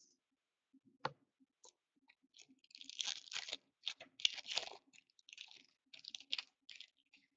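Foil wrapper of an Artifacts hockey card pack being torn open and crinkled by hand, a run of short crackling bursts from about three seconds in, after a single click about a second in.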